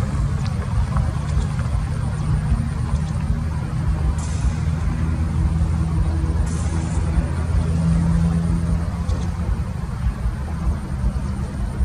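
Steady low rumble of an approaching Airbus A330-300 airliner on final approach, its Rolls-Royce Trent 700 engines heard from a distance.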